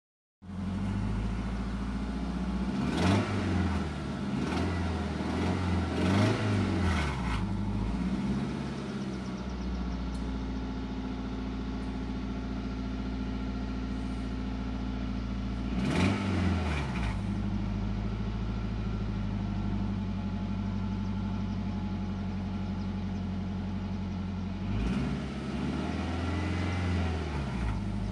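Honda F22B 2.2-litre four-cylinder engine idling steadily, heard from inside the car's cabin. It is blipped up and back down about three times in the first eight seconds, once about 16 seconds in, and again near the end. The owner says the exhaust manifold is cracked.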